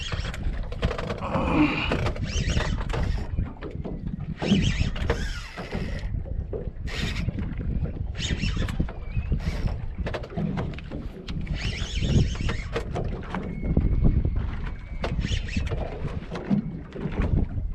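Wind buffeting the microphone on a small fishing boat at sea, a continuous rough rumble with irregular gusts and splashy hiss coming and going every second or two.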